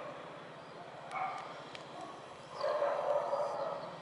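A dog barking: a short bark about a second in, then a longer, louder run of barks near the end, over a steady low hum.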